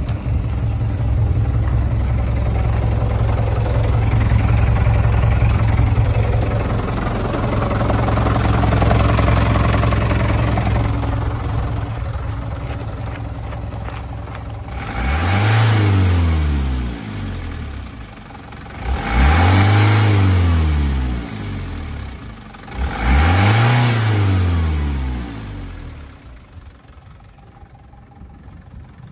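Mitsubishi Canter's 4D33 four-cylinder diesel engine idling, then revved three times, each rev rising and falling over about two seconds, before settling back to a quieter idle.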